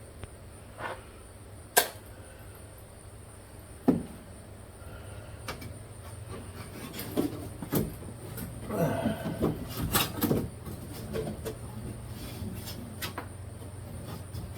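Hand work inside a 1954 Plymouth Belvedere's door: scattered sharp knocks and clicks of tools and loose parts against the door's metal, then a busier spell of clattering and scraping about halfway through, over a steady low hum.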